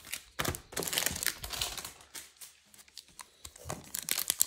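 Foil wrapper of a Topps Chrome baseball card pack crinkling and tearing as it is opened by hand: scattered crackles, a short lull, then denser crinkling near the end.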